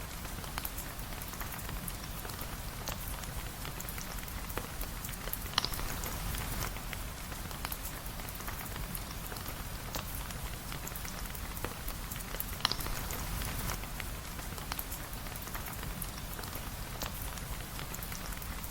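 Steady rain, with now and then a sharp pop or crackle from a wood fire.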